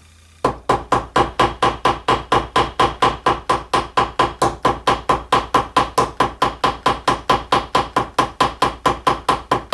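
Ball-peen hammer tapping the end of a rivet pin in rapid, even strokes, about five a second, peening it over to mushroom the rivet head and set the rivet.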